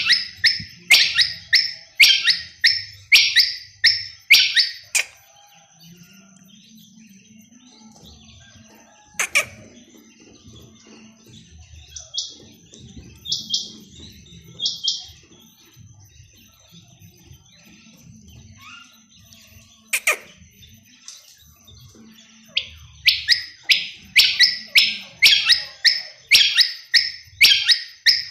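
Quail calling: a rapid series of sharp, high calls, falling to a few scattered calls in the middle, then a run of rapid calls again near the end.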